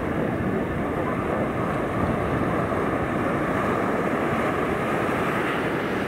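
Steady, even rushing noise of beach ambience, with no distinct sound standing out.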